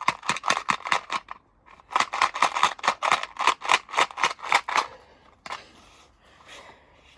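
A rapid series of sharp clicks, about five a second, in two runs: a short run at the start and a longer one from about two seconds in until about five seconds in.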